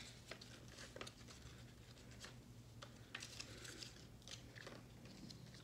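Faint rustling and flicking of paper coupons and cards being sorted by hand, a scatter of soft short clicks, over a low steady hum.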